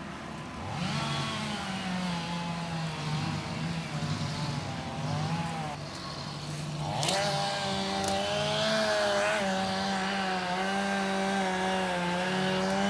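Two-stroke chainsaw running at high revs, its pitch dipping and recovering. It gets louder and steadier about seven seconds in.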